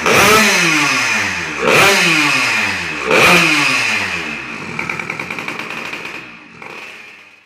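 Yamaha SS110 two-stroke engine, fitted with a Kawasaki Ninja reed valve, revved in three sharp throttle blips, each dropping back in pitch. It then settles to a fast, regular pulsing idle and fades near the end.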